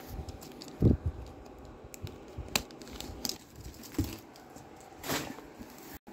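Cardboard packaging being cut and handled: scattered clicks and knocks, a thump about a second in, and a rustling scrape of cardboard near the end.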